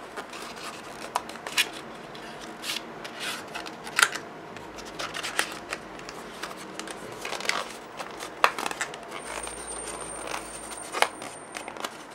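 A cardstock pillow box being turned and squeezed in the hands: scattered paper rustles and rubbing with light clicks and ticks, a few of them sharper.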